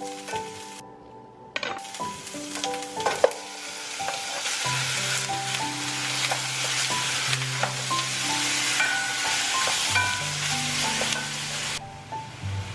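Food frying in a hot pan and being stirred, with a few sharp knocks of the utensil against the pan near the start. The sizzle starts about a second and a half in and stops suddenly near the end.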